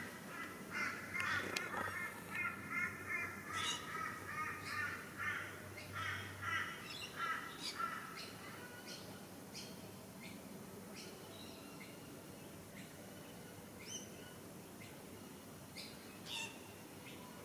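Crow cawing in a quick run of short, harsh calls for the first several seconds, then only a few faint bird chirps.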